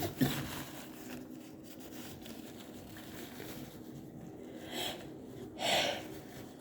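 A woman's sneeze trailing off at the very start, followed by short breaths: a faint one about five seconds in and a louder, sharper one near the end.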